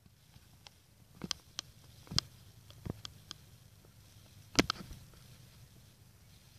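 Scattered short clicks and knocks of a phone being handled while it is carried and swung around, with one louder knock a little past the middle.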